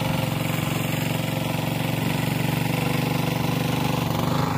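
Small rope-start petrol engine of a tubewell water pump running steadily, with an even, rapid firing beat.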